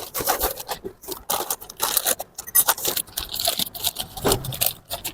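Rustling and scraping of packaging, with irregular small clicks and clinks of hard parts, as new motorcycle engine parts are unboxed by hand.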